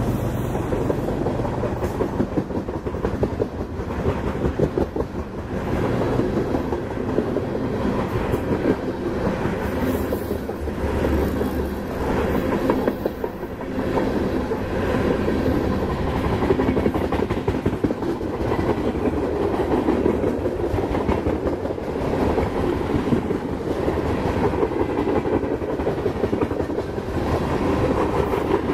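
Freight train's gondola cars rolling past: a steady rumble of steel wheels on rail with rapid clickety-clack from the trucks.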